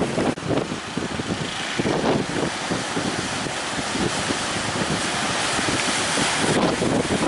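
Wind buffeting the microphone in irregular gusts over the steady rush of breaking ocean surf.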